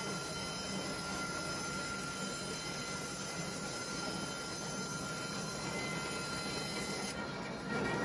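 Horizontal band sawmill running, its band blade cutting lengthwise through a log as the saw head travels along it: a steady mechanical noise with a thin, steady high whine. The sound shifts just before the end.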